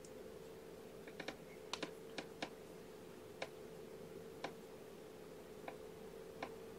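Faint, scattered light clicks, about ten at irregular intervals, over a steady faint hum.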